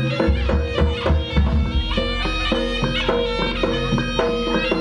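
Live Javanese jaranan ensemble music: a reedy slompret shawm holds a melody over struck gamelan percussion and drums beating a fast, even rhythm, with a heavy low bass coming in just after the start.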